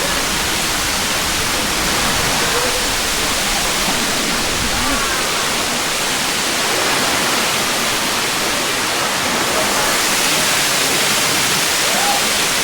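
Waterfall pouring steadily, a loud, even rush of water, with faint voices in the background.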